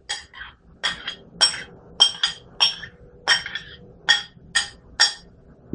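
Metal spoon clinking against a white ceramic bowl as fried onion is scraped out of it: about a dozen short, ringing taps, roughly two a second.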